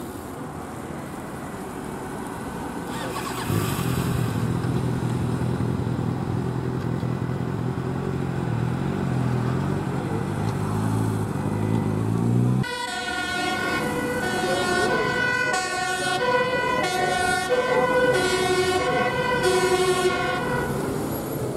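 A fire service vehicle's engine pulls away, its pitch climbing over several seconds as it accelerates. Then, after a sudden change about halfway through, a fire engine's two-tone siren alternates steadily between a high and a low note, stopping near the end.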